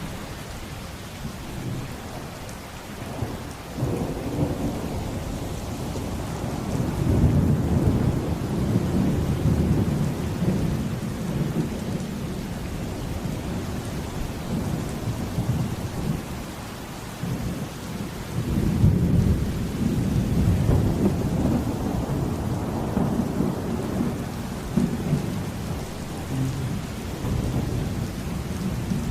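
Steady rain with rolling thunder, a thunderstorm. The rumble swells about seven seconds in and again near twenty seconds.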